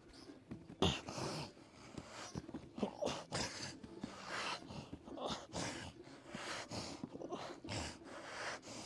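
A man breathing hard and grunting in short bursts, about one a second, as he strains through reps of lying hamstring curls.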